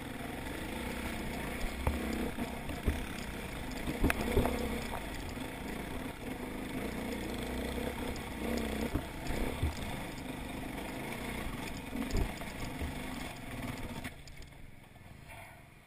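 Enduro dirt bike engine running at low revs while the bike picks its way over loose rock, with several sharp knocks along the way. The sound drops away sharply near the end.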